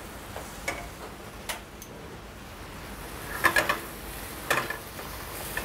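Wooden spatula stirring julienned vegetables sautéing in olive oil in a stainless steel saucepan, over a faint sizzle. A few light clicks early, then two short bursts of clacking about three and a half and four and a half seconds in as the spatula knocks against the pan.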